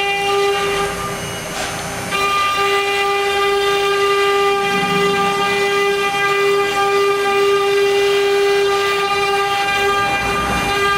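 3.0 kW spindle of a wood CNC router running at high speed with a steady high-pitched whine while a V-bit engraves a line into a wood board. The upper overtones of the whine drop away about a second in and return, louder, about two seconds in.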